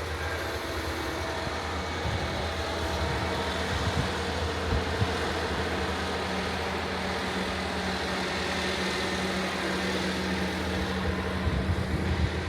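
Heavy diesel farm machinery working in the field: a steady low engine drone with a broad mechanical rush, and a few short knocks about five seconds in and near the end.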